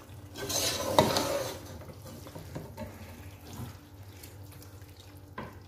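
Beef pieces sizzling in oil and spice masala in a pan as they are stirred. There is a loud burst of sizzle with a sharp knock of the spoon against the pan about a second in, then softer sizzling and light scraping clicks.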